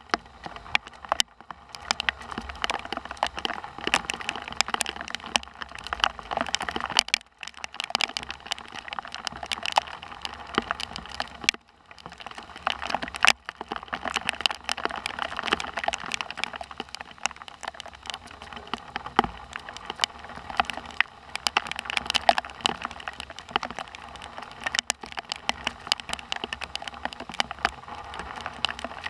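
Heavy thunderstorm rain pattering, a dense steady run of sharp drop clicks over a hiss, easing for a moment twice.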